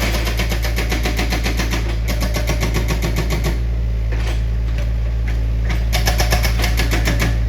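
Heavy machine's engine running steadily with a low rumble and a rapid, even ticking of about ten beats a second.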